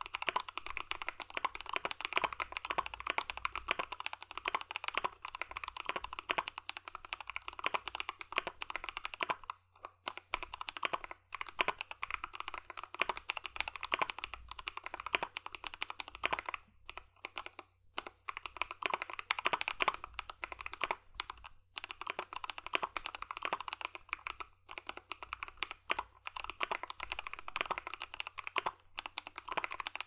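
Continuous typing on a KBD75v2 aluminium-case mechanical keyboard with lubed Fekker Panda tactile switches (Holy Panda clones) and PBT keycaps: rapid keystroke clacks with a few brief pauses, the longest near the middle. The batch has unevenly lubed switch leaves, which the uploader finds less crisp and uses to show how inconsistent these switches can sound.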